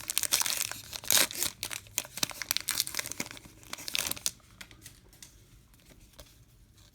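Baseball card pack wrapper being torn open and crinkled, a dense crackling that stops about four seconds in.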